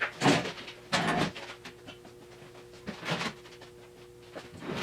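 Several separate knocks and clunks of the steel frame being handled as it is turned over on its jig, with a faint steady hum starting about a second in.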